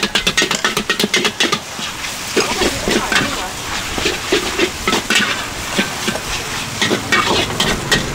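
Metal ladle and turner scraping and clacking against a wok while noodles are stir-fried over a steady sizzle. The strokes come quickly for the first second and a half, then slow to occasional scrapes.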